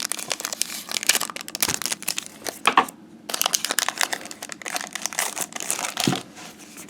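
Foil wrapper of a Pokémon trading-card booster pack crinkling as it is handled and pulled open, in a quick irregular crackle, with cards being handled.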